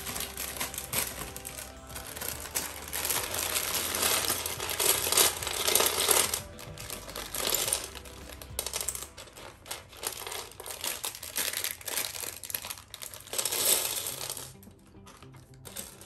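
Plastic bag crinkling as a bag of Lego bricks is opened and emptied, with small plastic pieces clattering onto a tray. Scattered clicks follow as the pieces are picked through by hand, with more bursts of crinkling and clatter in between.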